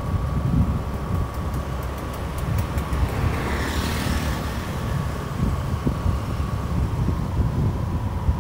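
A vehicle travelling along a town road: a steady low rumble of engine and road noise with a faint steady whine, and a swell of noise about four seconds in.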